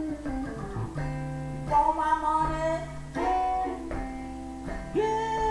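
Electric guitar playing a swamp rock passage: a line of held melodic notes over a steady low bass note.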